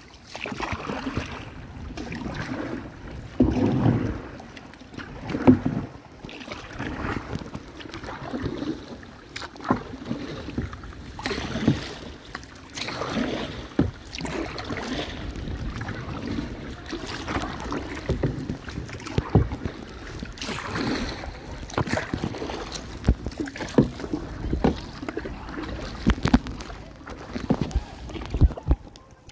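Kayak paddling: the paddle blades dip and splash in calm water in an uneven run of strokes, with water dripping and sloshing around the hull.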